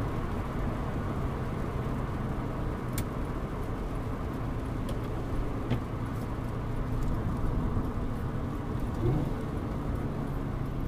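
1994 Acura Vigor's 2.5-litre inline-five engine running steadily at cruise, heard from inside the cabin along with tyre noise on a wet road. A few faint clicks and a short rising sound about nine seconds in.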